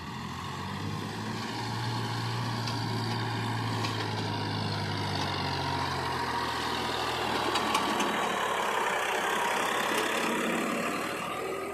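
Heavy diesel engine running steadily, building up over the first couple of seconds and easing off near the end, with a few faint clanks over it.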